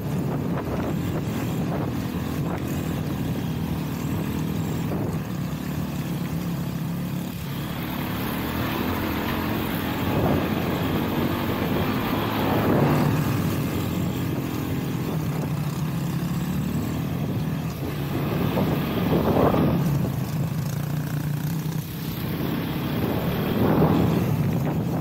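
Honda CRF-X enduro motorcycle's single-cylinder four-stroke engine running steadily on a trail ride, with four short surges as the throttle is opened up.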